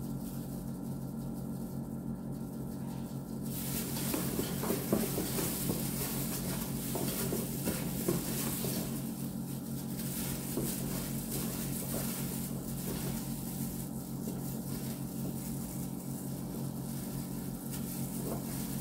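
Hands in plastic gloves mixing and squeezing chicken pieces with onion and spices in an enamel pot: wet squelching and crinkling of the gloves, which picks up a few seconds in, over a steady low hum.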